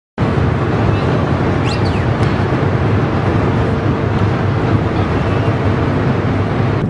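Large ship's engines running: a loud, steady low rumble with a constant hum. It starts abruptly just after the beginning, and a couple of brief high gliding tones come through about two seconds in.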